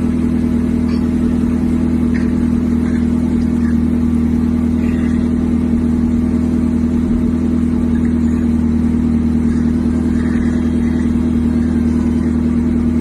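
McLaren supercar engine idling steadily, with a constant deep note and no revving.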